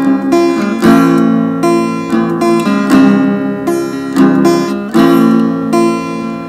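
Acoustic guitar strummed in a slow chord pattern, a heavier strum about every two seconds with lighter strokes between; it fades away near the end.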